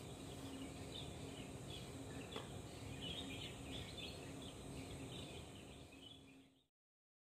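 Faint outdoor ambience with small birds chirping over and over and a faint steady hum, cutting off to silence near the end.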